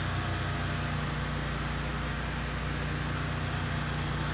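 Engine of a power-washing rig running at a steady speed: a constant low hum with no change in pitch or level.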